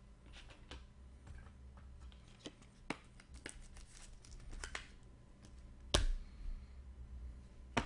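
Trading cards and packaging being handled: faint rustling and crinkling with scattered light clicks, and one sharper click about six seconds in.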